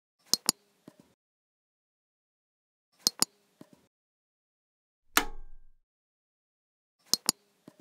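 Computer mouse and keyboard clicks at a desk: three groups of two sharp clicks followed by two softer ones, a few seconds apart. About five seconds in there is one louder, duller knock.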